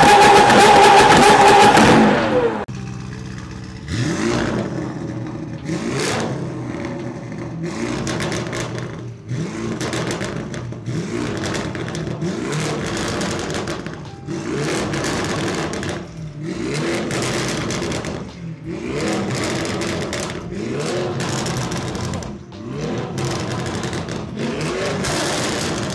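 Lamborghini Aventador SVJ V12 held at high, steady revs, then dropping off about two seconds in. Then a Lamborghini Urus MTM's twin-turbo V8 revved repeatedly while standing still, one short rising rev about every two seconds.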